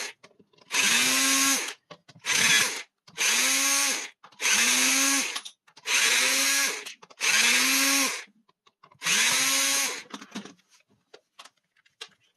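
Power drill-driver unscrewing the screws of a small compressor's plastic housing in seven short runs, each rising in pitch as the motor spins up and then holding steady; the last run is the longest. Faint clicks and taps of the housing being handled near the end.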